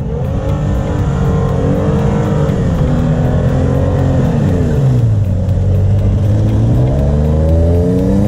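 Toyota Tacoma pickup's engine revving up and down under load as it ploughs through deep snow. The pitch rises, drops about four seconds in, stays low, then climbs again near the end.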